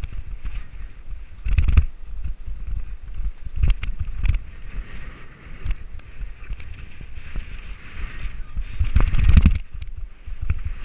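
Mountain bike descending a dirt woodland trail: a steady low rumble from wind on the microphone with rolling tyre noise, broken by sharp knocks and rattles as the bike hits bumps. The biggest cluster of knocks comes about nine seconds in, with others near two and four seconds in.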